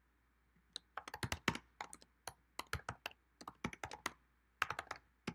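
Typing on a computer keyboard: quick keystrokes in short runs with brief pauses, starting about a second in.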